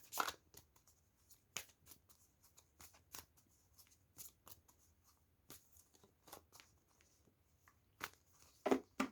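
A deck of oracle cards being shuffled and handled by hand: a run of soft, irregular card flicks and clicks.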